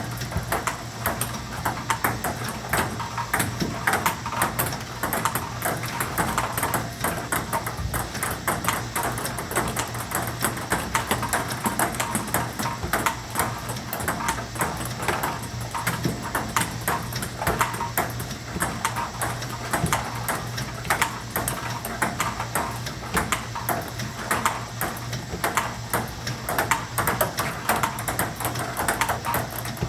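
Table tennis balls being fed by a ball robot and hit back with a paddle in a fast continuous warm-up drill: a steady stream of sharp clicks of ball on bat and table, several a second, over a steady low hum.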